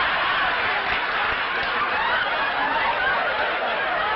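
Studio audience laughing together, a sustained wave of laughter from many people at once.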